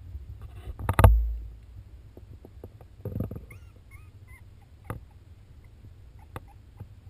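Newborn Pembroke Welsh corgi puppies squeaking and whimpering a few times, short and high, about three and a half seconds in, over a low rumble of shuffling on the towel. A loud thump comes about a second in, and there are a few soft knocks later.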